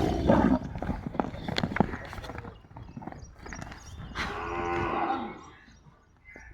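A dairy cow mooing once, a low call of about a second starting about four seconds in. It is preceded by a loud bump at the start and scattered knocks.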